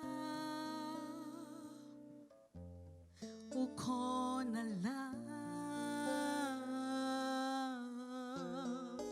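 Slow church worship music: a voice hums a melody with wavering vibrato over sustained instrumental chords, leading into a Zulu worship song.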